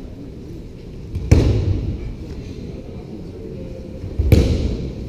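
Two heavy thuds of judoka's bodies landing on a tatami mat during groundwork rolls, about three seconds apart.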